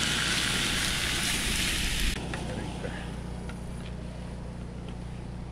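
Canadian back bacon sizzling in a skillet. About two seconds in the sizzle cuts off, leaving a quieter background with a steady low hum and a few faint clicks.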